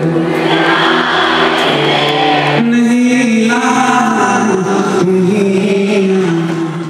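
A male singer singing live into a microphone with band accompaniment, holding long notes in the second half.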